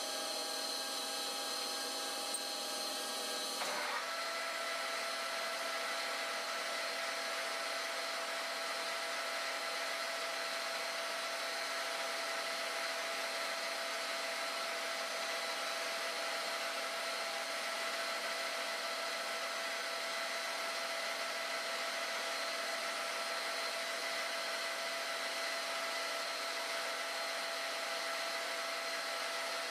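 Metal lathe running, its four-jaw chuck spinning while a drill held in the tailstock chuck feeds into the workpiece: a steady machine hum with several fixed pitches, which shifts once about four seconds in and then holds.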